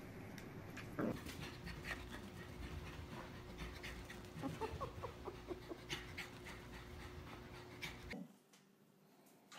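A dog panting while it plays, with scattered light clicks and scuffles and a few short high-pitched cries a little past the middle. The sound drops away about eight seconds in.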